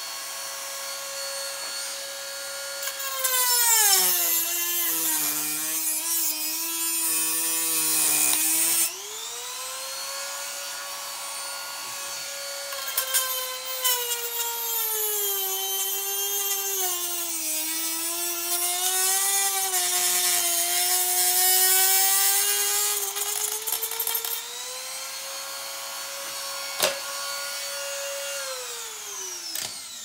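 Dremel rotary tool whining at high speed, its pitch dropping twice for several seconds as it bogs down and cuts with a harsh grinding hiss into the steel-belted tire bead next to the rim. It spins down in falling pitch as it is switched off near the end.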